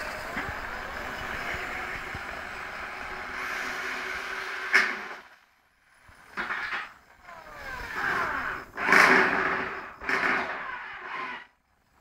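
Corrugated metal roofing sheet being dragged over wooden roof battens and flexed, a long grating scrape with a sharp knock about halfway through. Then come several shorter scrapes with a warbling, bending metallic ring, the loudest about three quarters of the way in.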